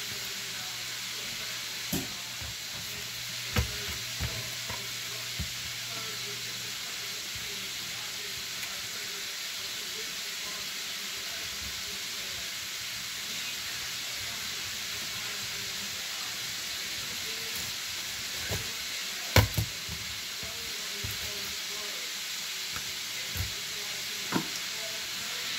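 Steady hiss with a few scattered knocks and taps from a knife and hands on a cutting board as the skin is cut from a salmon fillet. The sharpest double knock comes about three-quarters of the way through.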